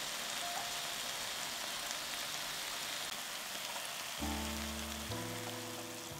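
Chopped vegetables with tomato sizzling in a frying pan, a steady crackle. Near the end water is poured into the pan.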